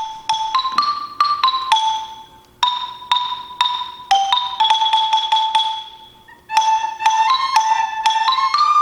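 Music on a tuned mallet percussion instrument: quick phrases of single struck notes that each ring on, the sound dying away after about two seconds and again around six seconds before a faster run of notes near the end.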